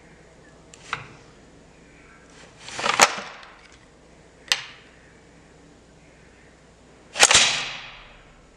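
M16 rifle's bolt being charged and cycled: four metallic clacks of the charging handle and bolt carrier. There is a light click about a second in, a loud slam at about three seconds, a sharp click at about four and a half seconds, and another loud slam with a short ringing tail just after seven seconds. Charging the bolt throws the plastic chamber safety flag out of the ejection port.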